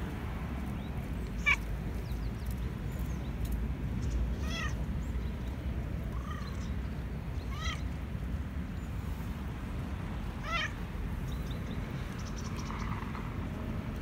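A black-and-white domestic cat meowing five times, short calls a few seconds apart, one of them softer and lower. The cat is begging for food.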